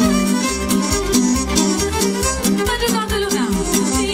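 Live Romanian folk dance music from a band: a violin carries the melody over a steady keyboard bass beat and chords.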